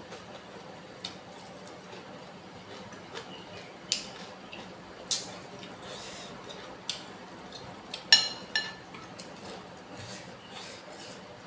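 Spoon clinking against a bowl of bakso, among soft, wet eating sounds. The loudest clink, about eight seconds in, rings briefly.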